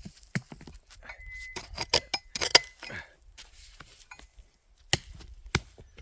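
Sharp clinks and knocks of a digging tool striking rocks in loose rocky tailings, busiest about two seconds in, with single hard strikes near the end. A steady high electronic tone, typical of a metal detector signalling a target, sounds for nearly two seconds, beginning about a second in.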